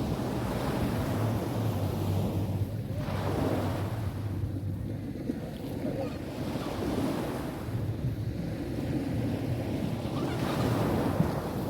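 Sea waves breaking and washing up a sandy shore, the surf swelling and easing every few seconds. Wind buffets the microphone with a steady low rumble.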